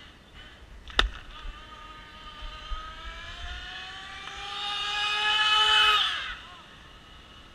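A single sharp smack about a second in, then a passing car's engine that grows louder with its pitch slowly rising as it speeds up, before dying away quickly just after six seconds.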